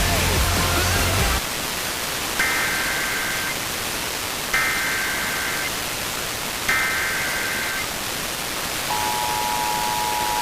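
Music breaks off about a second in, leaving steady radio hiss. Then come three roughly one-second bursts of Emergency Alert System SAME header data, a warbling two-pitch digital chirp. Near the end the EAS two-tone attention signal starts, a steady dual tone announcing a new alert.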